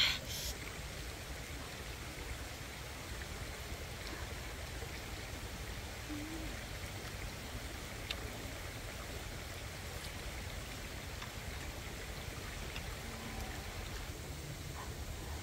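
Steady outdoor background noise, an even hiss like running water, with a sharp click at the very start and a few faint ticks later on.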